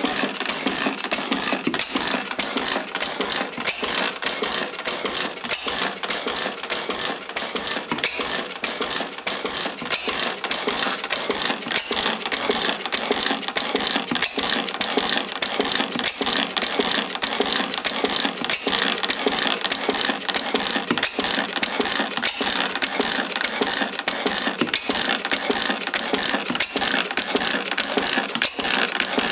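Antique Schleicher Schumm inverted vertical Otto gas engine running steadily, its valve gear and igniter making a rapid, even mechanical clatter with an occasional louder knock. It is running well.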